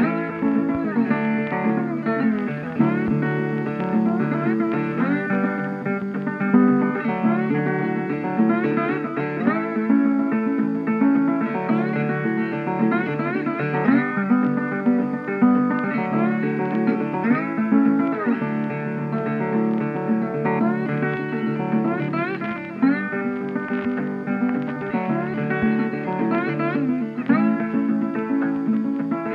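Instrumental background music led by a plucked guitar, with frequent notes that slide upward in pitch.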